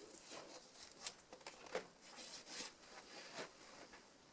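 Faint, scattered rustles and short squeaks of artist tape being pulled and pressed along the edges of a window air conditioner.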